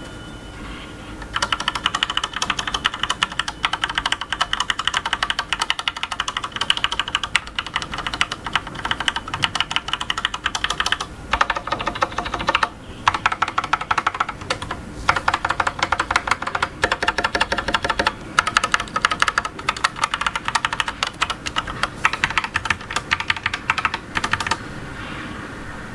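Typing test on a GK87 mechanical keyboard with Cherry switches: long runs of rapid key clicks and clacks with a few short pauses, stopping shortly before the end.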